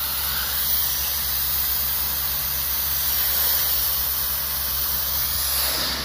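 Pressure washer lance jet hissing steadily against concrete paving slabs as it blasts chewing gum off, with a steady low hum underneath.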